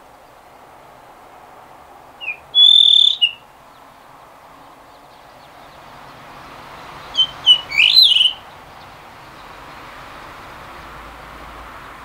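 Male blue rock thrush singing two short whistled song phrases, about two seconds in and again about seven seconds in, over a steady background hum.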